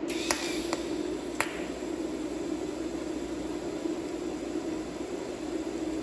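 TIG welding arc hissing steadily over a constant hum, with three sharp clicks in the first second and a half.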